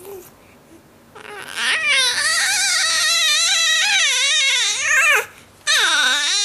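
A cat yowling: two long, high, wavering calls with a rapid wobble in pitch, the first starting about a second in and the second following a short gap.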